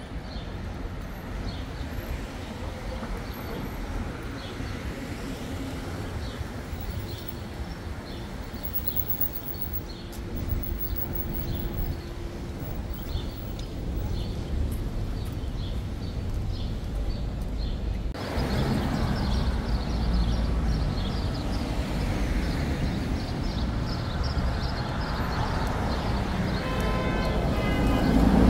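Outdoor city street noise: a steady rumble of passing traffic. It changes abruptly about two-thirds of the way through and grows louder near the end.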